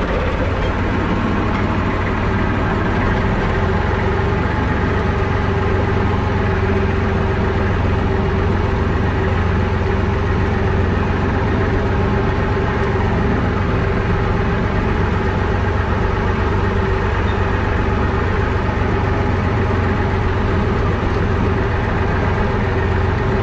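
An IMT tractor's three-cylinder diesel engine running steadily as the tractor drives slowly along a track, heard from inside the cab.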